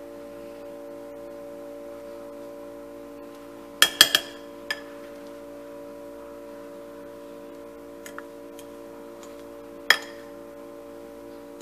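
Sharp clicks of hands knocking against a glass bowl while mashed potato is kneaded by hand: a quick cluster of three about four seconds in, another just after, and a single click near the end, over a steady hum.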